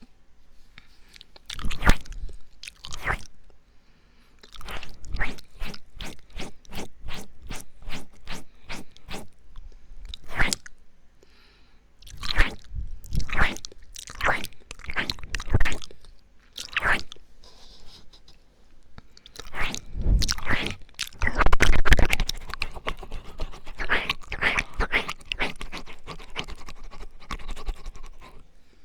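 Intense close-up ASMR mouth sounds: wet clicks, smacks and licking. They include a fast, even run of clicks at about five a second.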